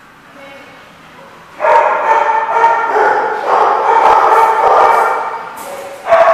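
Dog whining and yowling in long, wavering pitched cries, starting about a second and a half in, with another cry starting near the end.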